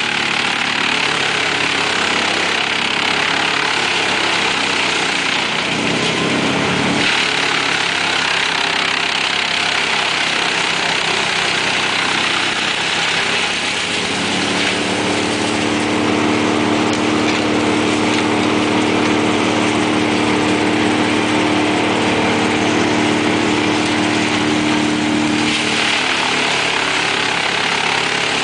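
Mobile wood chipper running under load as a crane grapple feeds it branches and brush, a continuous loud engine sound mixed with the hiss of wood being chipped and blown out. The chipping noise is strongest over the first several seconds and again near the end, while the engine's steady hum stands out more in between.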